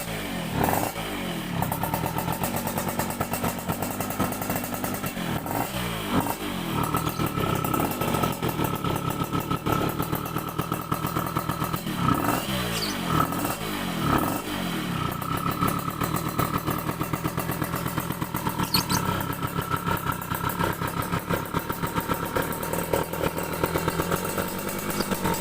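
Motorcycle engine idling through an aftermarket exhaust (knalpot) freshly repacked with new glass wool, with the throttle blipped several times so the revs rise and drop back.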